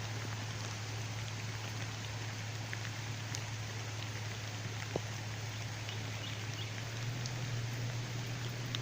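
Steady hiss of light rain falling, with a low steady hum underneath and a few faint scattered ticks.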